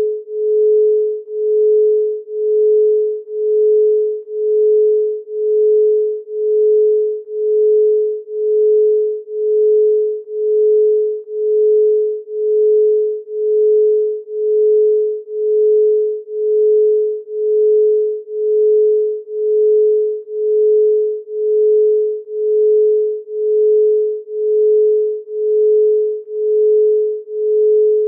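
A pure electronic sine tone a little below 500 Hz, steady in pitch, pulsing on and off about once a second: a chakra-tuning tone.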